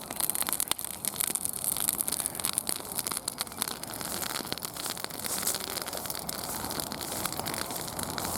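Wood fire burning with a dense, irregular crackle of small pops over a steady hiss.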